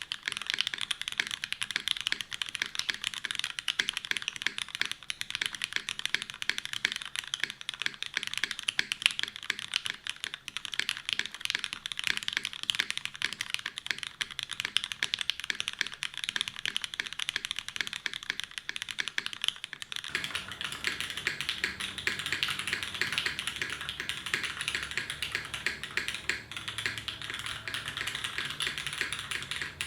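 Continuous typing on a custom mechanical keyboard: Cherry MX Black linear switches lubed with Krytox 205g0, on an aluminum plate in a dnworks SBL case with GMK keycaps, giving a dense, even stream of keystroke clacks. About two-thirds of the way in the sound turns fuller, with more low end.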